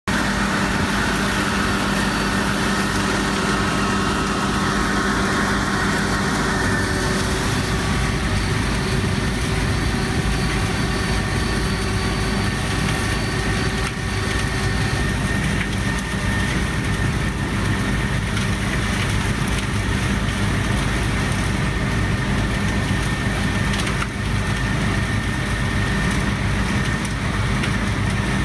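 Cappellotto Caprecy vacuum truck running steadily, its engine and vacuum system giving a constant low drone with a steady high tone over it.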